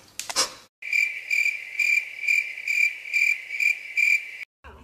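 A steady, high-pitched chirping trill that pulses about twice a second, starting suddenly about a second in and stopping abruptly near the end.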